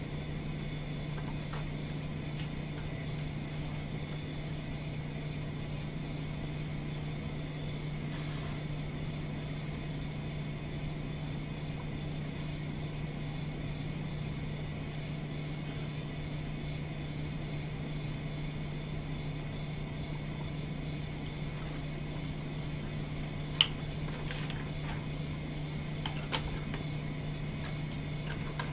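Steady low hum with a faint hiss, broken by a few sharp clicks of plastic bottles and caps being handled. The loudest click comes about three-quarters of the way through and a smaller one follows soon after.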